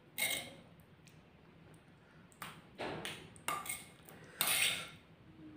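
A metal spoon scraping chili sambal terasi against the inside of a stone mortar (cobek). There are about five short scrapes: one near the start, then four close together from about two and a half seconds in.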